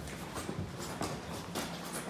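Footsteps of a person walking on a concrete subway platform, about two steps a second.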